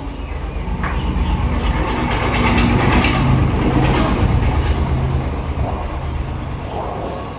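Motor vehicle passing, its engine rumble growing louder to about three seconds in and then fading away.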